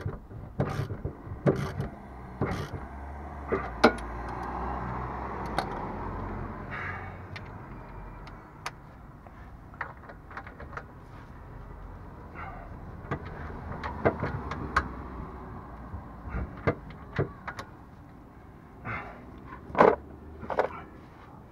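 Irregular metallic clinks and knocks of hand tools, sockets and car parts being handled during work under a car, over a steady low hum. A rushing sound swells and fades between about three and eight seconds in.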